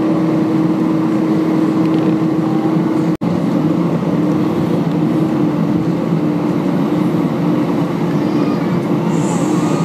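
Steady jet engine hum heard inside the cabin of a taxiing Airbus A319-114, with a constant low drone. The sound drops out for an instant about three seconds in.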